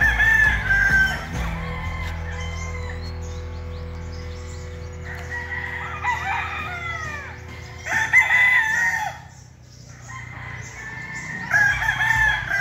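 Roosters crowing several times in turn, with clucking, over a steady low hum.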